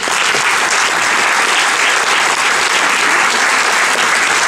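Audience applauding: a dense, steady round of clapping from many hands.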